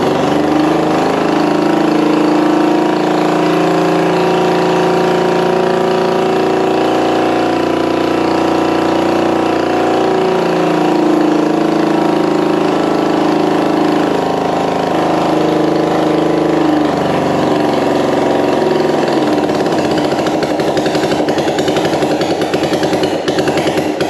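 1965 Honda CB450's 444 cc DOHC parallel-twin engine running on a little choke soon after its first start, with the right-side muffler missing. The note is steady at first; after about 17 seconds it breaks up into a rougher, rapidly pulsing run.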